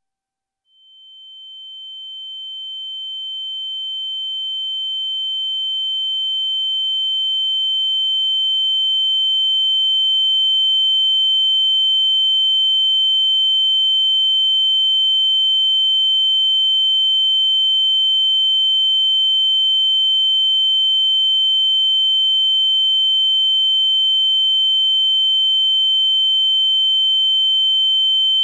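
Ear-ringing (tinnitus) sound effect: a single high-pitched steady tone with fainter tones above and below it. It fades in slowly over about the first ten seconds and then holds at a constant level.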